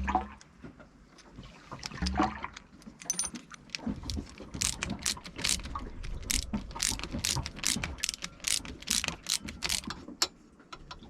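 Ratchet wrench clicking in a steady run of short strokes, tightening a nut on a bolt, after a couple of knocks of metal parts being handled.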